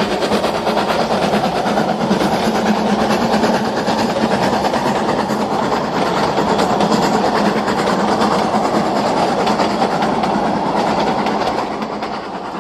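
Narrow-gauge train running past, a dense steady clatter of wheels on rail, fading away near the end.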